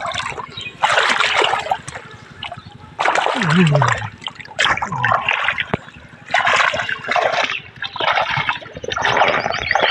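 A large fish thrashing in shallow muddy paddy water, making about five loud splashes in separate bursts, with water trickling and sloshing between them.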